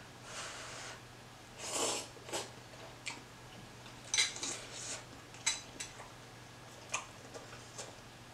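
Close-up eating of hot ramen noodle soup: a slurp of noodles about two seconds in, then chewing with wet mouth clicks and lip smacks.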